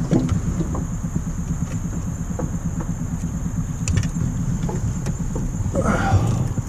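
Mercury 9.9 outboard motor running steadily, a fast, even low pulsing, with a brief rustle near the end.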